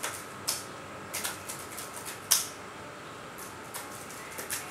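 Typing on an HP laptop keyboard: irregular key clicks, with one louder key press a little over two seconds in.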